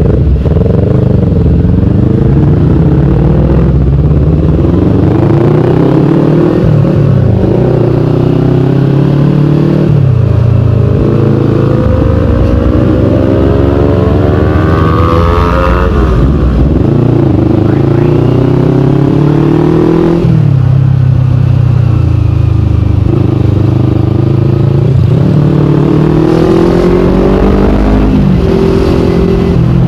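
Kawasaki Ninja 250fi parallel-twin engine through a KP16 aftermarket exhaust, accelerating on the road: the pitch rises in long climbs and drops sharply at each gear change, about half a dozen shifts in all.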